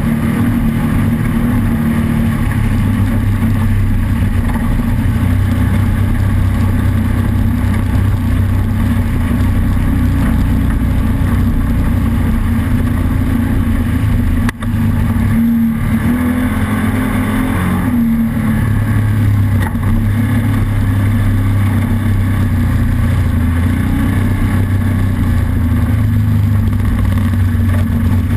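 Off-road race vehicle's engine running hard and steadily, with a brief break about halfway through and a few shifts in pitch just after.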